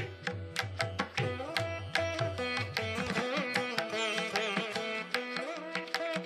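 Instrumental background music in an Indian classical style: a string melody with bending notes over a hand-drum beat. The drum drops back for a couple of seconds in the middle.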